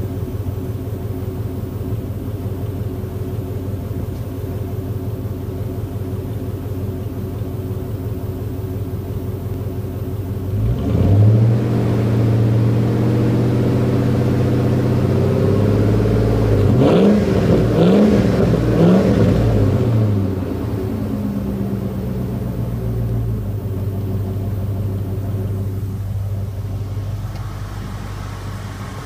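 Lincoln Town Car's 4.6-litre V8, fitted with an H.O. conversion, heard at the exhaust tailpipe. It idles steadily, is revved up about a third of the way in and held at raised revs, is blipped three times in quick succession, then settles back to idle.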